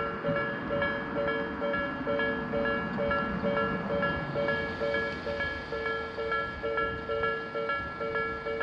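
Japanese level-crossing warning bell ringing: a fast, steady electronic ding-ding of two alternating tones, repeating without pause. A low rumble swells and fades in the middle.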